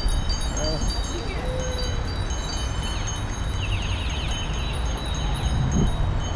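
Many bicycle bells ringing among a crowd of cyclists, short high dings overlapping at several pitches, with a quick trill of rapid strokes about four seconds in. A low rumble of wind and road noise runs underneath.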